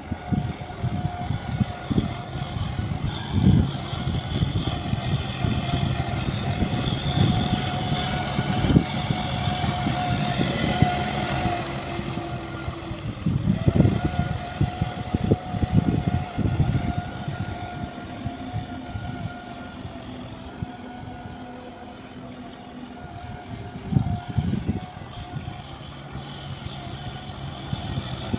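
Tractor diesel engine working under load, pulling an implement through a flooded rice paddy: a steady engine drone with irregular low thumps throughout. About halfway through, the engine note breaks off briefly and then picks up again.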